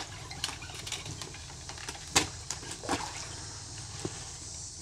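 A few short splashes and slaps of water as a hooked sheepshead swirls at the surface beside a kayak, over a steady low background noise.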